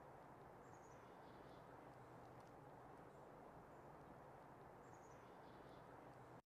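Near silence: faint outdoor ambience with two brief, faint, high bird chirps, one about a second in and one near the end. It cuts off suddenly to dead silence at the very end.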